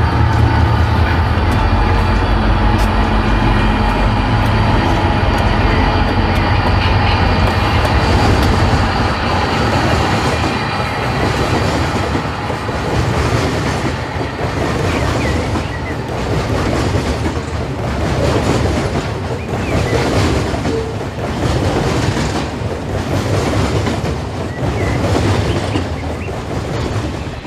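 HO-scale model train passing: the Santa Fe diesel locomotives' engine rumble for the first several seconds, then the double-stack container cars rolling by with a rapid clickety-clack of wheels over rail joints as the rumble fades.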